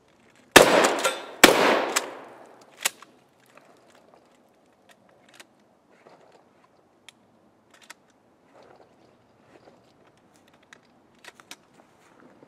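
A shotgun fired twice in quick succession, the shots about a second apart, then a sharp metallic clack and a run of faint clicks as shells are pushed one by one into the empty magazine tube.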